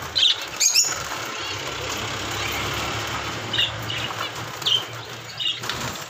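Java sparrows giving short, high chirping calls, a few at a time and spaced unevenly, over a steady low hum.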